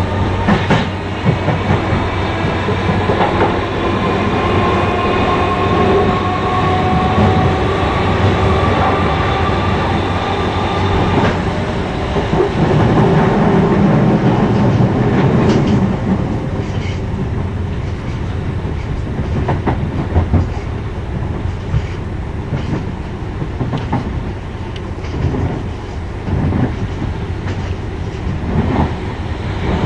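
British Rail Class 313 electric multiple unit accelerating, its traction motor whine rising steadily in pitch and then cutting off about eleven seconds in as power is shut off. The train then runs on with its wheels clicking over rail joints.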